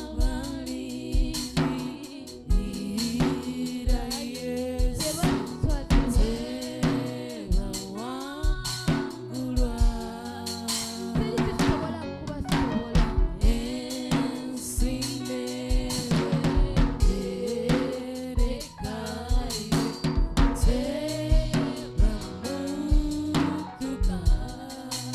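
Live worship band playing gospel music with a full drum kit (kick, snare and rimshots) under sung vocals.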